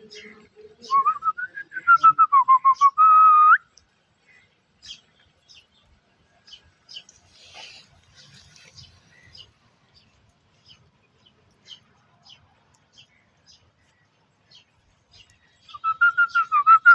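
A warbling whistled phrase, heard twice. Each time it glides up and down, flutters rapidly, then settles on a held note. The first comes about a second in and the second near the end, with only faint ticks between them.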